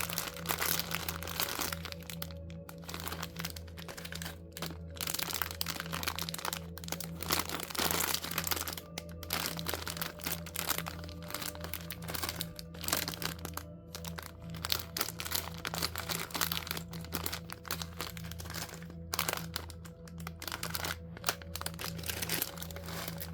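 Small plastic trinkets and their packaging being handled and sorted: a busy run of irregular clicks, clacks and crinkling rustles, over soft steady background music.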